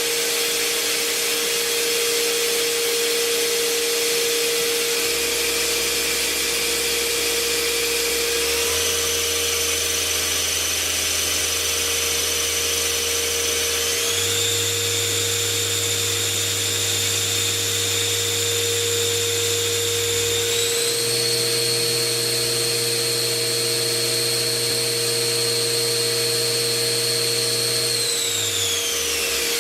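Spinner PD 32 S CNC lathe spindle running up in speed steps: its whine jumps higher three times, then falls away as the spindle winds down near the end, over a steady hum from the machine.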